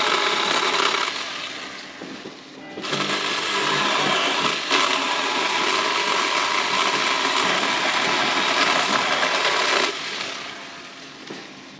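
Small Ryobi saw running at speed and cutting branches: the motor eases off about a second in, comes back up near three seconds, runs steadily, then cuts off about ten seconds in.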